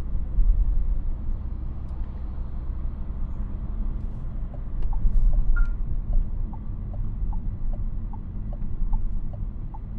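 Cabin noise of a Renault Captur E-Tech Full Hybrid being driven: a steady low road and drivetrain rumble that swells twice. Faint ticks come about twice a second in the second half.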